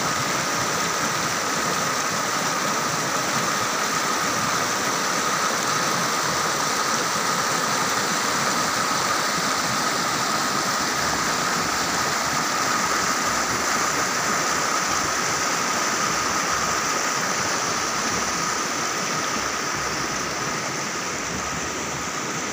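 Fast mountain stream rushing over rocks, a steady loud rush that eases slightly near the end.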